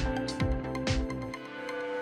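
Background music: held tones over a steady drum beat, with the drums dropping out about two-thirds of the way through.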